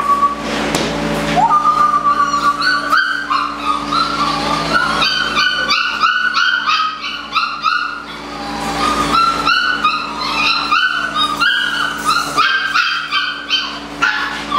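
A litter of Belgian Malinois puppies whining and yipping, many short high-pitched calls overlapping in quick succession and easing off briefly about halfway through, over a steady low hum.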